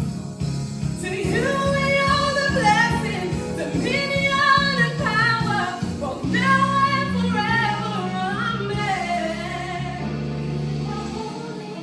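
Choir with female lead voices singing a gospel song over low instrumental backing. The backing drops out near the end, leaving the voices alone.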